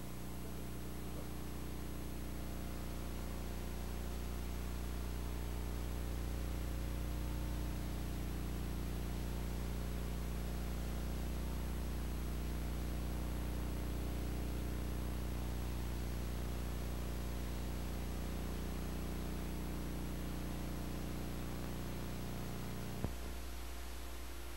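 Steady electrical mains hum with hiss in an old tape recording. A click near the end, after which most of the hum drops away.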